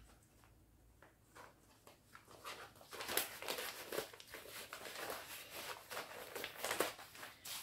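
Loose paper sheets rustling as they are handled and leafed through: soft, irregular rustles starting about two seconds in.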